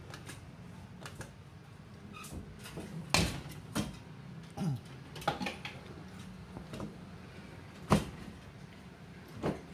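Irregular clicks and knocks from a coin-operated claw machine being played, over a steady low hum; the loudest is a sharp knock about eight seconds in.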